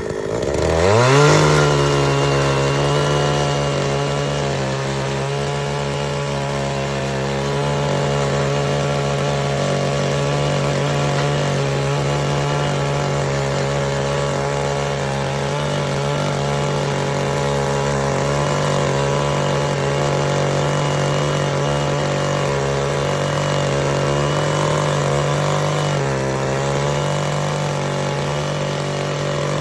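Small gasoline engine of a Kawano mini tiller (cultivator) revving up about a second in, then running steadily at speed with a slight waver in pitch.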